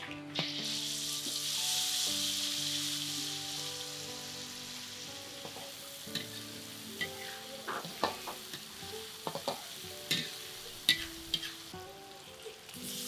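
Food frying in hot oil in a pan. The sizzle starts just after the beginning, is loudest in the first few seconds and then dies down. A spatula scrapes and clicks against the pan through the second half.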